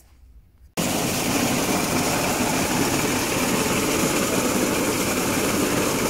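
Engine-driven maize sheller running under load while cobs are fed through it, a dense, steady mechanical rattle. The noise cuts in abruptly under a second in, after a brief near-quiet gap.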